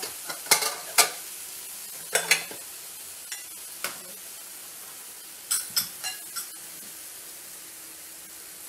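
Prawns, squid and bean sprouts sizzling in a non-stick wok, with a steady hiss. A silicone spatula scrapes and knocks against the pan about ten times, the two loudest knocks near the start.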